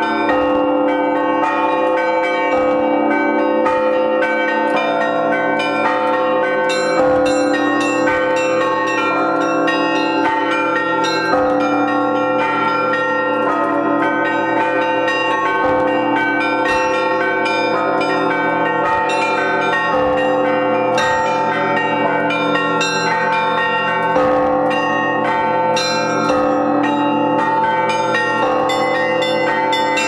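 Russian Orthodox festive bell peal (prazdnichny zvon): several church bells of different pitches rung by clappers pulled on ropes, a fast, dense pattern of small bells over steady middle bells, with a deeper stroke about every four seconds.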